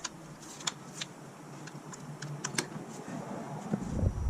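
A few scattered light clicks over faint background noise, with a low rumble coming in near the end.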